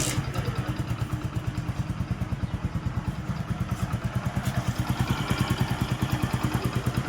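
Hero HF Deluxe motorcycle's small single-cylinder four-stroke engine idling with a steady, even exhaust beat, a little stronger near the end. With a new timing chain, tensioner blade and push rod fitted, it runs without any timing-chain rattle.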